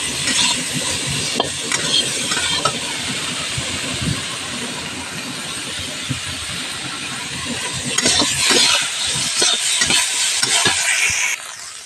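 Bitter gourd pieces sizzling as they fry in oil in a metal kadhai, with a spatula scraping and stirring against the pan. The stirring grows busier about eight seconds in, and the sizzle cuts off suddenly near the end.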